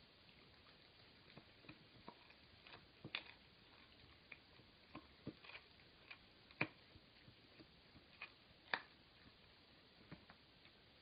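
Dog gnawing on a chew: faint, irregular clicks and crunches of teeth on the chew, with two louder crunches about six and a half and nearly nine seconds in.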